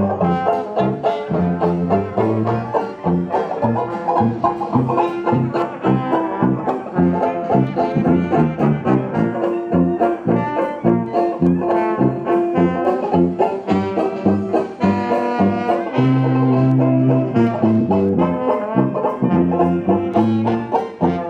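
Band music with banjo and brass horns, a jazzy tune over a steady plucked rhythm.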